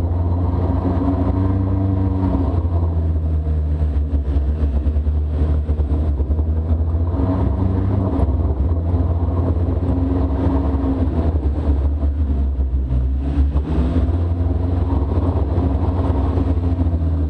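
Arctic Cat Wildcat side-by-side UTV engine running, a steady loud engine note with a strong low rumble that shifts up and down a little in pitch as the throttle changes.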